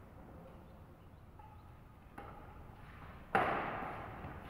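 Badminton rackets striking a shuttlecock during a rally: a lighter hit about two seconds in, then a loud sharp smack about a second later with a noisy tail that fades over about a second.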